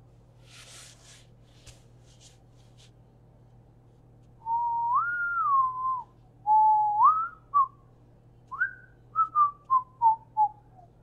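A person whistling a tune, starting about four seconds in: a couple of longer rising and falling phrases, then a run of short notes stepping down in pitch. Before it, only a few faint soft handling noises.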